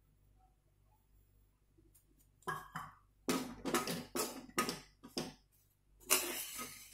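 Slotted steel spoon scraping and stirring roasted gram flour in a metal kadai, in a run of short, uneven strokes that starts about two and a half seconds in.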